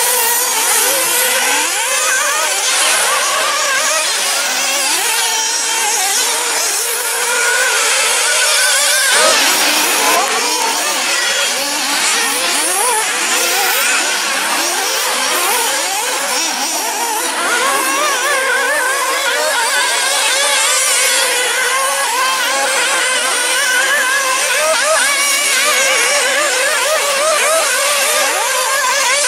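Several 1/8-scale off-road nitro RC buggies racing at once, their small two-stroke glow engines whining at high revs. The pitches keep rising and falling as the cars accelerate and brake around the track.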